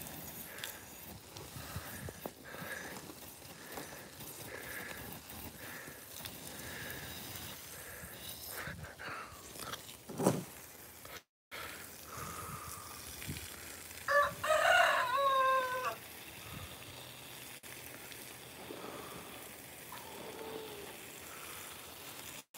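A rooster crows once, a call of about two seconds, about fourteen seconds in. Under it runs the faint steady hiss of water spraying from a garden hose.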